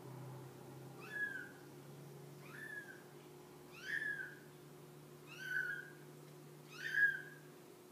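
A 3-week-old kitten mewing: five short, high-pitched mews, one about every second and a half, the last the loudest.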